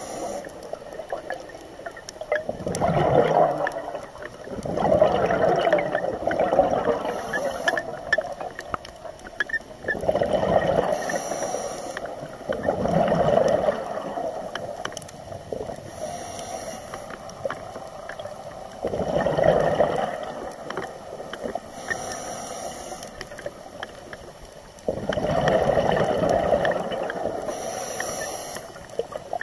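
Scuba diver breathing through a regulator underwater: bursts of exhaled bubbles gurgling every four to six seconds, with a fainter high hiss between them.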